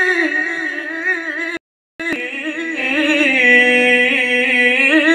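A man's high, amplified solo voice singing an ornamented Arabic devotional melody in the qori style, with long held notes and wavering runs. The sound cuts out completely for a moment just before two seconds in, then the singing resumes.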